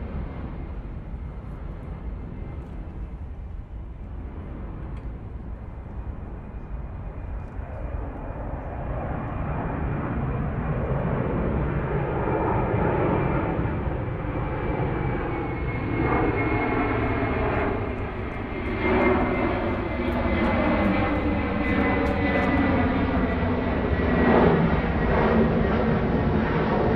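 Airplane engines running and growing steadily louder, with a thin high whine that slowly drops in pitch over the second half.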